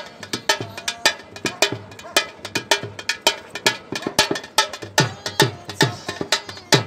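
A two-headed barrel drum played by hand in a quick, steady rhythm, its deep strokes dropping in pitch.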